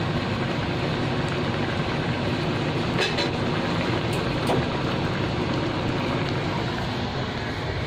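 Steady rushing noise of a kitchen range hood fan running over the stove, with a couple of light clicks of the plastic spatula against the wok a few seconds in.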